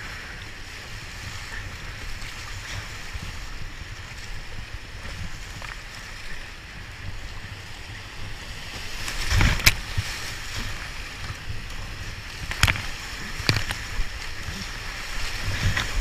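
Whitewater rapids rushing around a kayak, with a low rumble of water and wind on the microphone. Several sharp splashes come about nine and a half seconds in and again around thirteen seconds in.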